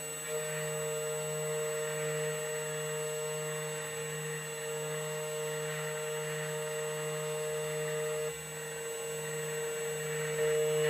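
2M2 Tank CNC key cutting machine cutting a Toyota TOY48 key blank: a steady motor whine and low hum over a grinding hiss of the cutter on the blade, which dips and shifts in tone about eight seconds in.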